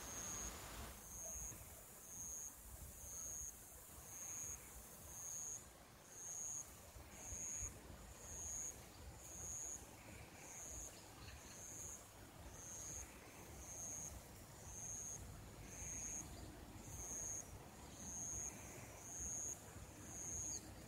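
An insect, cricket-like, chirping high and thin in an even rhythm of about one chirp a second, over faint outdoor hiss.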